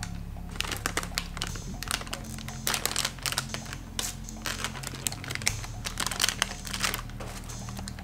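Plastic bag of Snow Flakes frosted cereal being slowly pulled open and handled, a run of irregular crinkles and crackles. They are loudest around three seconds in and again around six seconds in.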